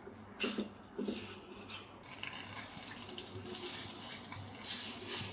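Two light knocks of kitchenware, then water running steadily.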